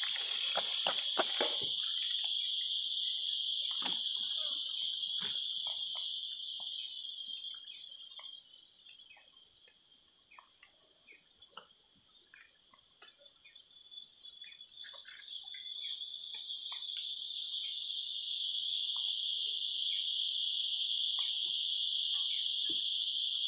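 Steady high-pitched insect chorus from the tropical forest, fading away in the middle and swelling back up near the end, with a few light clicks near the start.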